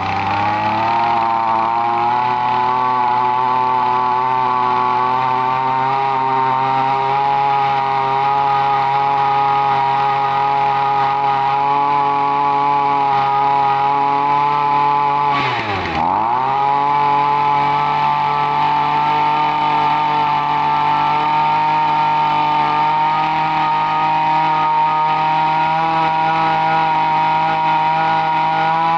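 Makita MEM2300U brush cutter's small two-stroke engine running steadily at high revs. About halfway through the throttle is let off and opened again, and the revs dip sharply and climb straight back.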